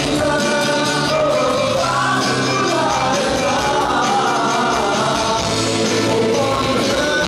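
A live rock band playing loudly, with electric guitar and a man singing into a microphone over a steady bass line.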